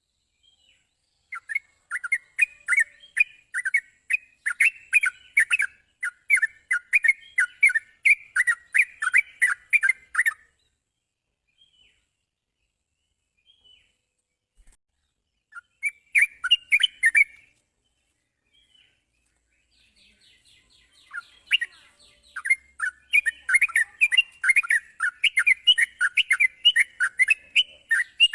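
Yellow-vented bulbul (trucukan) singing: runs of quick, bubbly chattering notes in several bursts with short pauses between, joined by fine high-pitched ticking.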